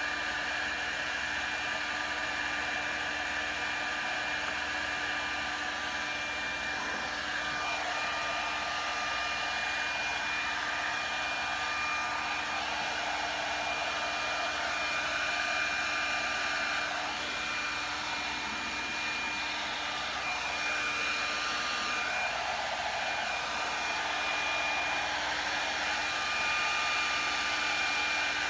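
Handheld blow dryer running steadily, a constant rush of air with a steady motor whine, blowing across wet epoxy resin to spread the colours.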